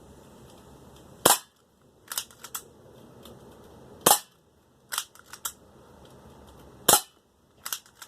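Spring-powered 1911-style BB pistol firing at a metal plate target: three sharp shots about three seconds apart, each followed about a second later by a quick run of lighter ticks.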